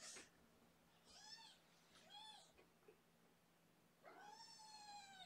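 Cat meowing faintly three times: two short mews that rise and fall, about a second apart, then a longer, slightly falling meow near the end.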